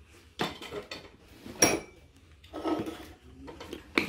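Handling noise from a plastic ketchup squeeze bottle and the table things around it: a few separate clicks and knocks, the sharpest a brief clink about one and a half seconds in, and a couple of quick clicks near the end as the flip-top cap is thumbed open.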